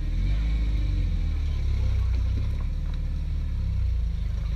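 Jeep Cherokee XJ engine running at low speed under load as the 4x4 crawls over rocks: a steady low rumble that gets slightly louder just after the start.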